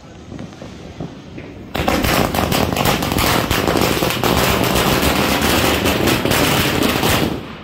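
Firecrackers going off in a rapid, unbroken run of loud bangs, starting a little under two seconds in and lasting about five and a half seconds before stopping.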